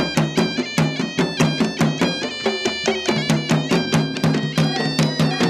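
Traditional music: fast, even drumming at about seven strokes a second with a melodic line of stepping notes over it.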